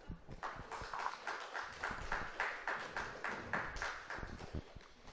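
Light applause from a small audience: quick, fairly even claps at about six or seven a second, dying away near the end.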